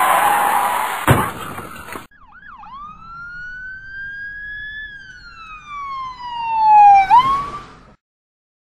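A loud rushing hiss with a single sharp knock about a second in, then one long siren-like whistling tone that rises slowly, falls, swoops briefly back up near the end and fades out.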